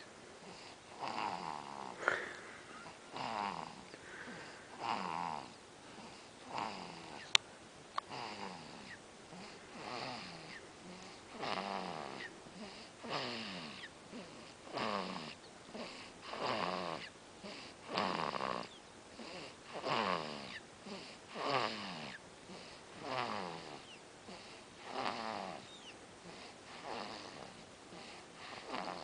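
Steady, rhythmic snoring, one breath about every one and a half to two seconds, each snore sliding down in pitch. A single sharp click cuts in about seven seconds in.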